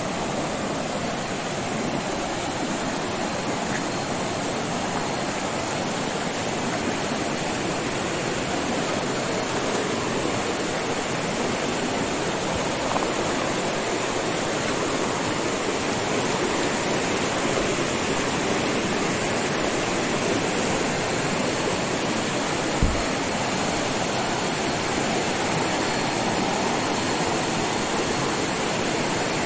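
River water rushing steadily over rocks and rapids, with a single low thump about three-quarters of the way through.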